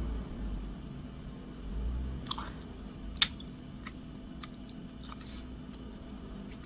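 A person chewing a mouthful of doughnut close to the microphone, with about half a dozen sharp, wet mouth clicks spread through the middle.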